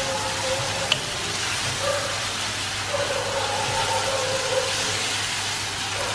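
Onions with ginger-garlic paste and turmeric sizzling in oil in a stainless steel kadai as they are stirred with a wooden spatula: a steady frying hiss, with one sharp knock about a second in. An on-and-off mid-pitched hum runs underneath.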